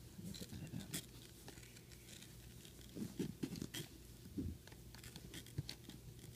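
Faint handling noise of a handbag and the items packed in it being moved about: scattered light clicks and rustles, with a small cluster of them around the middle.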